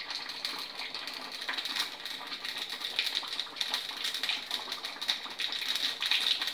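Mustard seeds popping and spluttering in hot oil in a small tempering pan: a quick, uneven run of little pops and crackles over a steady sizzle.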